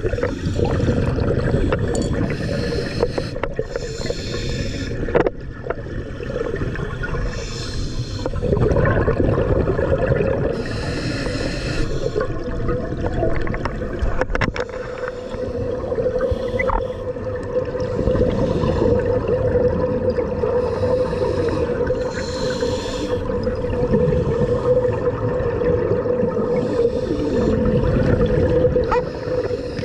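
Underwater sound on a scuba dive: a diver's regulator, with a burst of exhaled bubbles hissing out every few seconds over a steady low hum.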